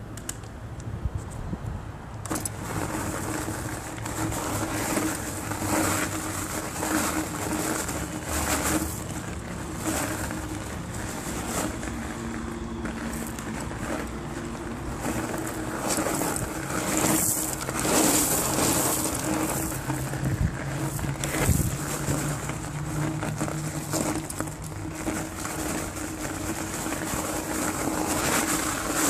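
InMotion V8 electric unicycle riding over fine gravel: the tyre crunching and crackling on the loose stones, with a steady hum from the hub motor underneath. The crunching gets louder about two seconds in, as the wheel moves from paving onto the gravel.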